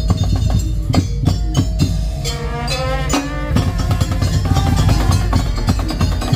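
Madurese tong-tong ensemble playing: a steady stream of wooden slit-drum and drum strikes under a melodic line that wavers in pitch around the middle.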